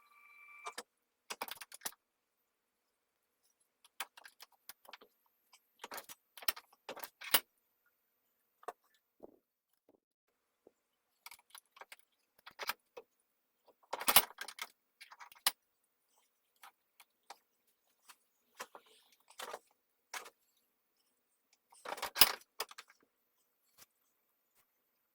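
Small metal tools and parts clinking and clattering as they are handled on a workbench, in irregular bursts with quiet gaps, the loudest clatters about halfway through and again near the end.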